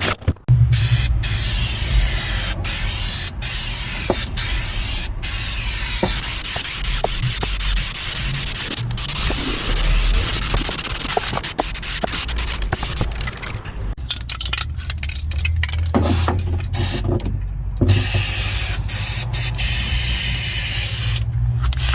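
A power tool scouring rust from a car's steel floor pan: a low motor hum under a rough rubbing hiss, broken by several abrupt cuts.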